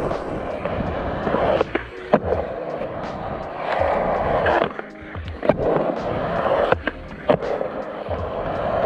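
Skateboard wheels rolling on smooth concrete bowl transitions: a continuous rolling rumble that swells and fades as the board carves and pumps. Several sharp clacks of the board cut through it.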